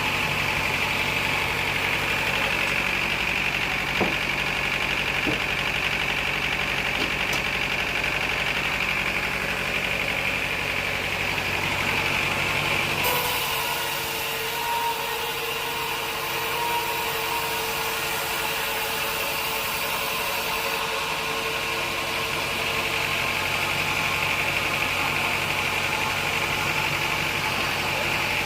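Sawmill machinery running steadily with a continuous engine-like drone and a high whine. About halfway through, the low drone falls away for several seconds while a brighter hiss and a steady tone come in, then the sound returns to how it was.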